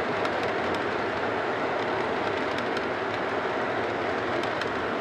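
O gauge model freight train rolling past: a steady rumble of the boxcars' metal wheels on the three-rail track, with a few faint clicks.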